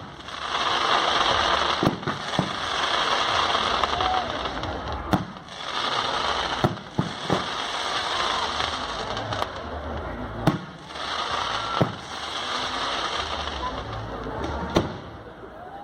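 A castillo fireworks tower burning: its fireworks hiss in long rushes, broken by about eight sharp bangs every second or two.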